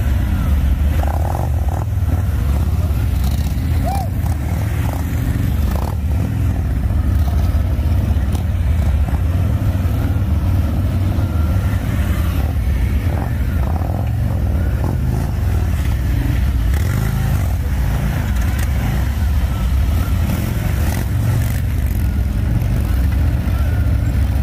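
Several large touring motorcycles idling and creeping along at walking pace, a steady low engine rumble with no big revs.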